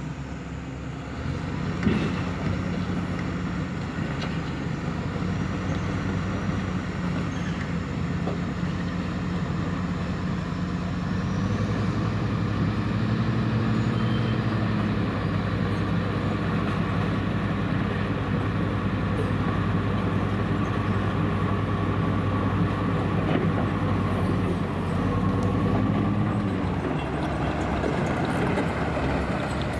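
Diesel engine of heavy road-building machinery running under load, its engine speed rising and falling a few times, with a sharp knock about two seconds in.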